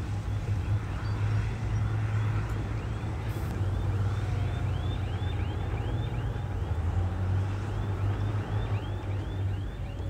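Heavy diesel earthmoving machinery running with a steady low engine drone. From a few seconds in, a high chirping squeak repeats about three times a second.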